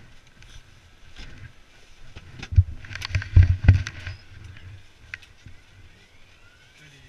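Muffled helicopter cabin noise, a low steady rumble, with a cluster of loud thumps and knocks between about two and a half and four seconds in.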